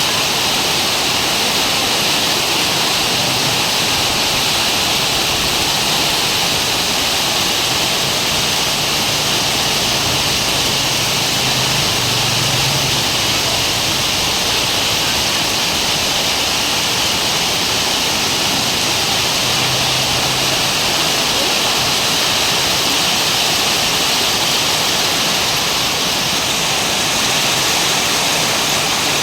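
Heavy rain pouring down, a loud, even hiss.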